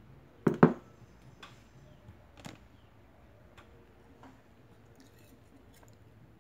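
A plate knocking down onto a table twice in quick succession about half a second in, then light, scattered clinks and scrapes of a metal spoon and fork against the plate.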